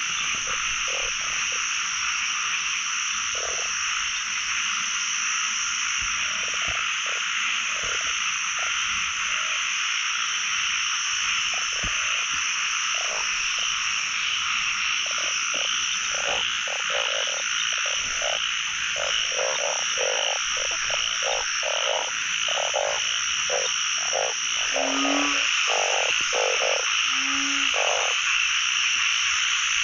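Narrow-mouthed frogs (ueng) calling in a breeding chorus: many short, low croaks, growing more frequent about halfway through, with a couple of deeper notes near the end, over a steady high-pitched chorus.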